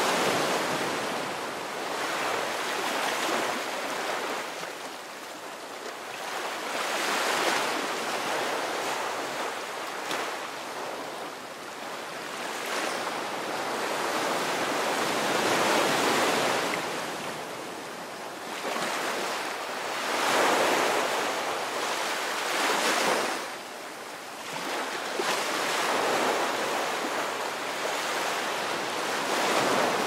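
Ocean surf: waves breaking and washing up the beach, the rush of water swelling and easing every few seconds.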